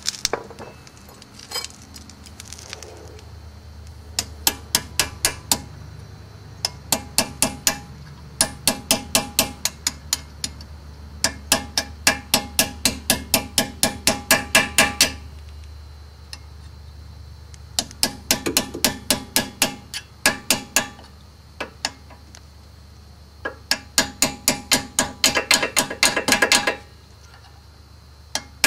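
A hammer tapping the brake pad retaining pins back into a Mercedes W126 Bendix front caliper from the back side. Quick runs of ringing metal taps, about four a second, come in six bursts of a few seconds with short pauses between.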